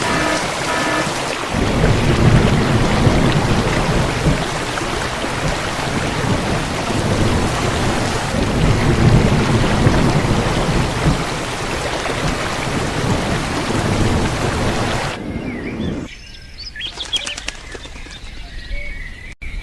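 Heavy rain with deep rolling thunder, a loud steady rush that cuts off sharply about fifteen seconds in. Faint bird chirps follow near the end.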